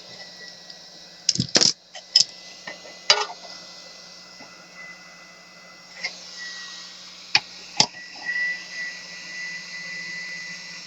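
Hot-air rework station's fan running steadily, with a low hum and a hiss of air, while the handpiece rests in its cradle in the cool-down phase before the unit cuts off. Several sharp clicks and knocks sound over it, a cluster about a second and a half in, one about three seconds in, and two near the end.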